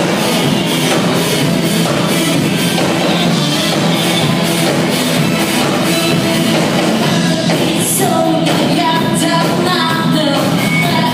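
Live rock band playing loud through a PA: electric guitars, bass and drum kit, with a voice singing over it in the second half.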